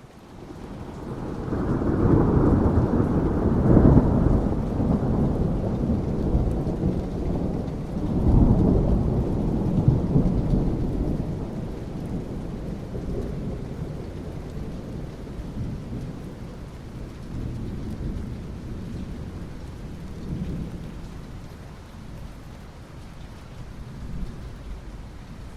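Thunder rumbling over steady rain. The deep rumble swells in the first few seconds, peaks again about eight to ten seconds in, then slowly fades into softer rolls under the rain.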